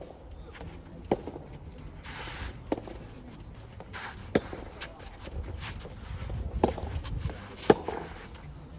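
Soft tennis rally: rackets hitting the soft rubber ball four times, each hit a sharp pock, about one and a half seconds apart at first, with a longer gap before the last and loudest hit.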